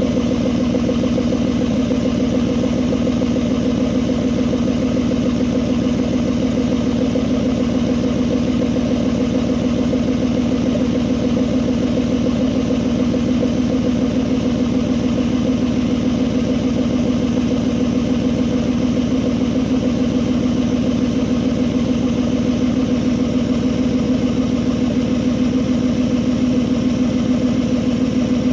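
2021 Ford F-150's 5.0-litre V8 idling steadily through an exhaust with the muffler deleted, an even pulsing exhaust note that holds at one pitch with no revs.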